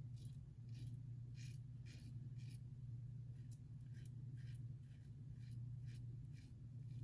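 Faint crisp scrapes of a King C. Gillette double-edge safety razor with a Wilkinson Sword blade cutting stubble through face lather, in short strokes of about one or two a second, over a low steady hum.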